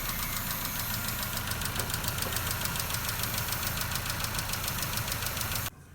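Nissan Note's 1.4-litre CR14DE four-cylinder engine running with a rapid, even valvetrain ticking, which stops abruptly near the end. The tick comes from oversized exhaust valve clearances and badly worn tappets.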